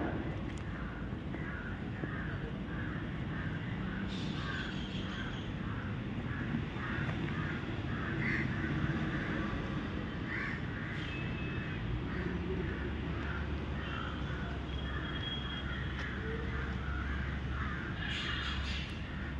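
Crows cawing in a quick, even run of calls, with a few higher bird chirps. A steady low hum comes in about two-thirds of the way through.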